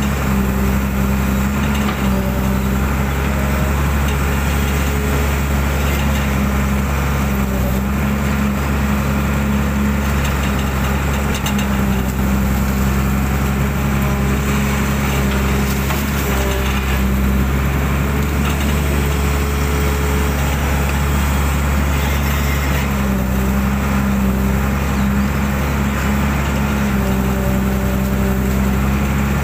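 Hydraulic excavator's diesel engine running steadily under load while the bucket digs and lifts wet mud, with a pitched hum that comes and goes every few seconds as the arm moves.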